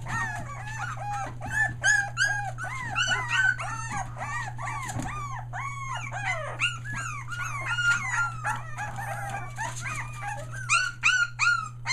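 A litter of three-week-old Australian Shepherd puppies whining and crying: many short high calls, several a second and overlapping one another, with a few sharper, louder yips near the end. A steady low hum runs underneath.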